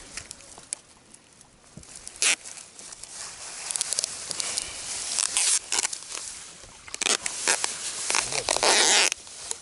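Plastic bag rustling and crinkling in irregular bursts as it is handled, with a sharp click a little over two seconds in and the loudest crinkling about eight to nine seconds in.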